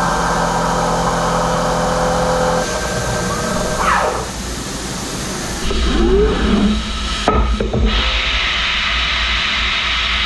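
A CNC machining centre's end mill roughing ductile iron, a steady multi-tone hum with coolant hiss that ends about two and a half seconds in. The spindle then winds down in sliding whines, and an automatic tool change follows with an air hiss and a few sharp clunks.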